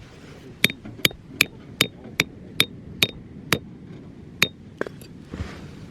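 Hammer striking metal in a steady series, about ten sharp clanks at roughly two and a half a second, each with a brief high ring; a short pause comes about four seconds in, and the last blows are fainter.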